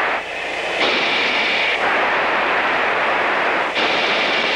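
Steady hiss of fighter-cockpit radio and intercom noise with no voice on it. A brighter layer of static switches on about a second in, drops out near two seconds, and comes back near the end, as radios are keyed.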